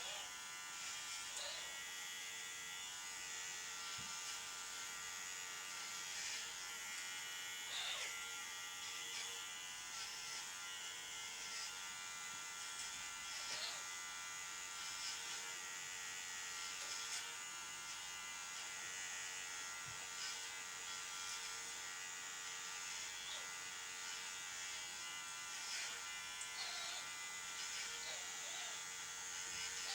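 Electric dog grooming clippers running with a steady buzz, with a few faint ticks now and then as they work through the puppy's coat.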